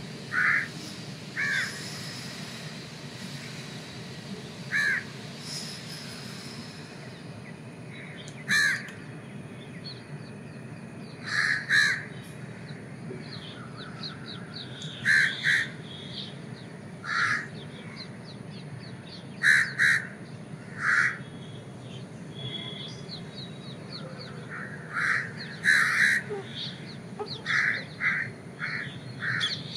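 Crows cawing, about twenty short caws scattered through, often in pairs and coming faster near the end, over a steady low background hum.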